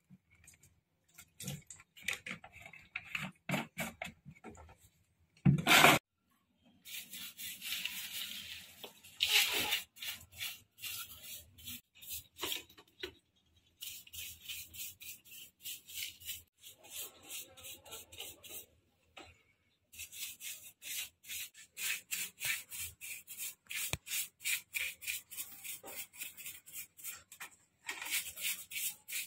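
Quick, repeated hand rubbing and scraping strokes, several a second, in runs with short pauses, as a Honda Win 100 cylinder head is cleaned by hand. One louder knock about five and a half seconds in.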